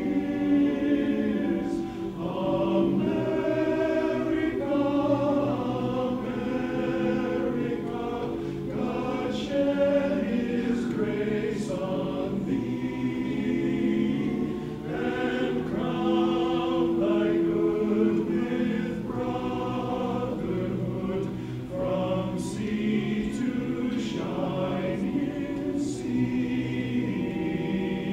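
Men's barbershop chorus singing a cappella in close multi-part harmony, with sustained chords and phrases that rise and fall together.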